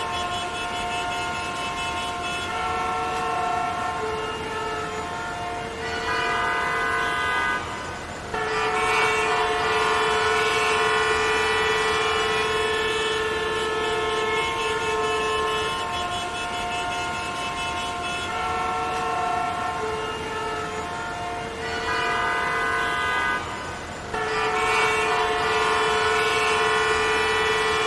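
Many car horns honking at once in a traffic jam: long, overlapping held horn tones of different pitches. The honking eases briefly about eight seconds in and again near the end, then comes back fuller and louder.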